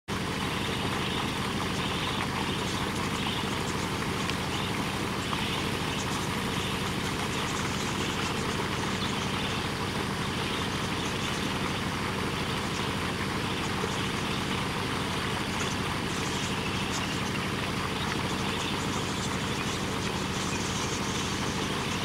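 A motor vehicle's engine idling steadily, a low even hum.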